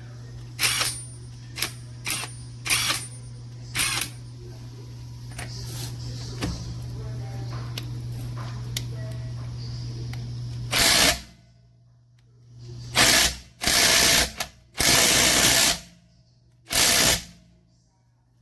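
Sharp clicks, then five short bursts of a cordless impact wrench's motor run in the second half, each lasting about a second.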